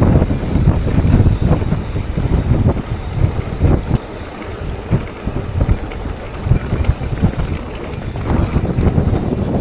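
Wind rushing over the camera microphone on a fast downhill mountain-bike run, with a loud low rumble and irregular knocks and rattles from the bike over rough trail.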